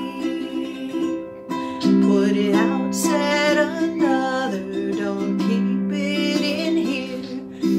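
A woman singing while strumming chords on a ukulele, with a short break in the voice about a second in.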